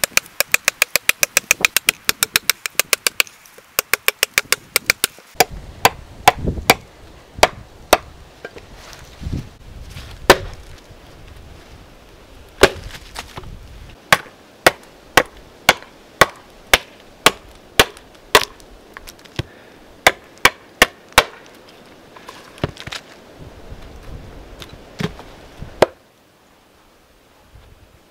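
A hand-forged broken-back seax chopping into wood. A quick run of light chops at about five a second, then single, heavier chops at roughly one and a half a second, which stop near the end.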